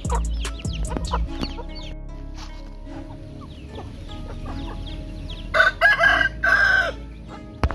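A rooster crows once, a loud call in three parts about two-thirds of the way in, among chickens clucking and short chirping calls.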